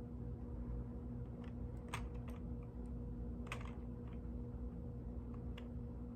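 Mechanical keyboard keys clacking in sparse, irregular keystrokes, two of them louder about two and three and a half seconds in, over a steady low hum.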